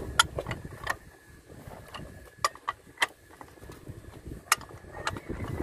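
Sharp metal clinks, about eight, scattered and irregular, as a steel socket wrench and bolts are worked in the planetary hub of a Kato HD512E excavator's track final drive.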